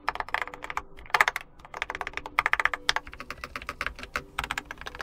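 Keychron K4 HE keyboard with magnetic Nubia linear switches being typed on: quick runs of sharp key clicks with short pauses between them.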